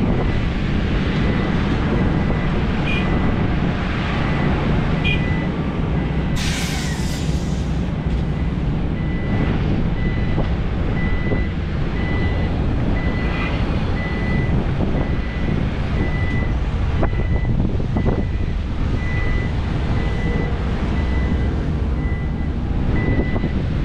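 Heavy diesel engines of a SANY SY500 excavator and dump trucks running under load, with a reversing alarm beeping about once a second. A short hiss of air about six seconds in.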